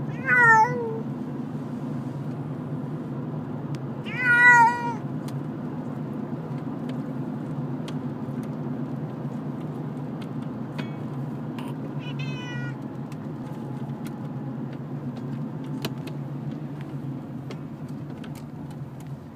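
A domestic cat shut in a wire-door pet carrier meowing three times: two loud, drawn-out, falling meows about four seconds apart near the start, then a fainter one about twelve seconds in, over a steady low hum. These are distress meows from a cat frightened by being moved in its carrier.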